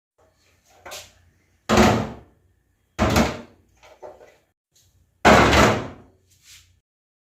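A series of sudden clunks and knocks, as parts of the refrigerator or items in it are handled: three loud ones about a second or more apart, with lighter knocks between them.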